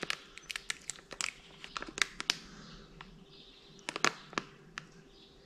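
Crumpled plastic packaging bag crinkling as it is handled in the hands, in a series of sharp, irregular crackles, the loudest cluster about four seconds in.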